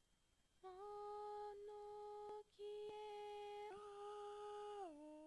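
A voice humming long, steady notes, with a short break about halfway and a slide down to a lower note near the end.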